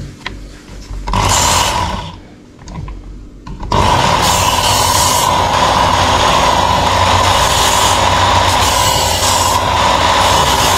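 Ken Onion electric belt knife sharpener running, its abrasive belt grinding a knife blade: a short burst about a second in, then steady grinding with an even motor whine from about four seconds in.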